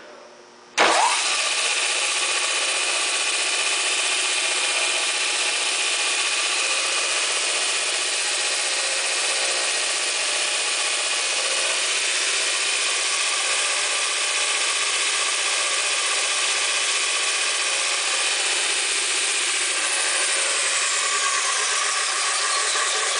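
Kalamazoo 6x48-inch belt sander with its 3 hp three-phase motor switched on about a second in, then running steadily with a whir of motor and belt. Over the last few seconds a faint high whine falls in pitch.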